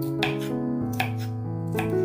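Kitchen knife chopping cucumber against a wooden cutting board, three sharp knocks about a second apart, over background music with held keyboard notes.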